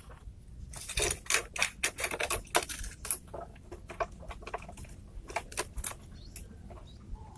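Irregular light clicks and clatters of small hard objects being handled or knocked together, quick and dense for a couple of seconds, then sparser.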